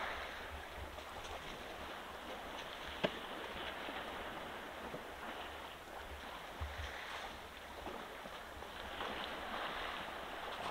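African elephant kicking and splashing in shallow muddy water: uneven sloshing and splashes that swell near the end, with a sharp knock about three seconds in.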